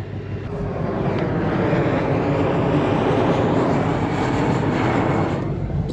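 A 2024 Mustang GT's 5.0 L V8 running through its Steeda H-pipe exhaust, with a steady low rumble. A broad rush of road and wind noise builds about half a second in and dies away near the end, heard from inside the car with the windows down.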